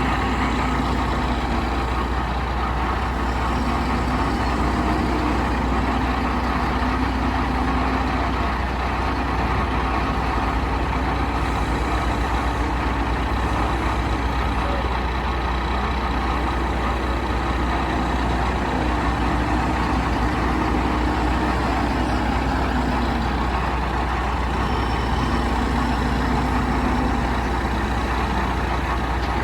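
Heavy diesel engines running steadily: a backhoe loader working beside a dump truck, with the engine note rising and falling a little under load.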